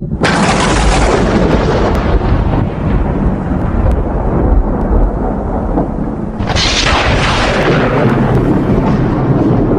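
Loud, thunder-like rumbling that starts abruptly out of silence, with a hissing crash at the start and a second one about six and a half seconds in.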